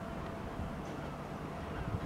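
Battery locomotive BL2 creeping along the yard track with its wagons: a steady low rumble with a faint constant hum above it.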